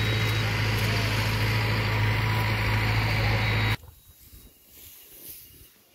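Motor vehicle engine running steadily with a low hum and road noise, cutting off abruptly about four seconds in and leaving faint outdoor quiet.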